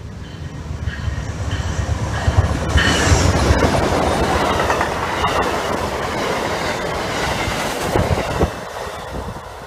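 Amtrak passenger train led by two GE P42 diesel locomotives passing close at speed: engine and wheel rumble with the clickety-clack of the cars over the rail joints. It builds to its loudest about two to three seconds in as the locomotives go by, holds while the cars pass, and falls away near the end.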